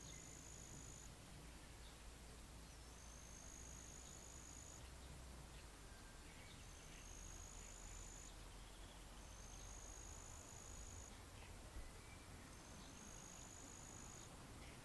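Faint high-pitched insect trill, repeating in buzzing phrases of a second and a half to two seconds about every three seconds, with a few faint bird chirps and a low rumble of wind in the background.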